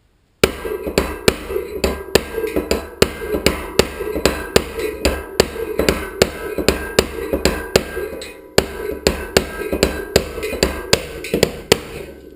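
Small hammer tapping a punch in a steady rhythm, about two to three blows a second, driving a sealed bearing out of a Mavic 20 mm bolt-through front hub.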